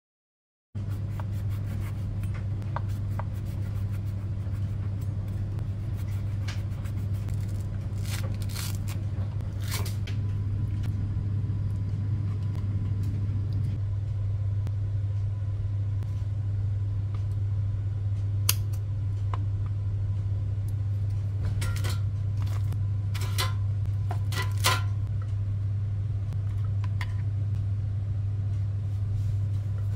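A steady low hum, like a kitchen appliance motor, starts abruptly just under a second in and runs on, with scattered light clicks and taps of chopsticks against plastic lunchbox containers as food is set in them.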